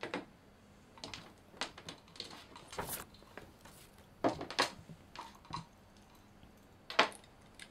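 Scattered light clicks, taps and rustles of a mains power cord and small plastic parts being picked up, handled and set down on a table, with a sharper knock near the end.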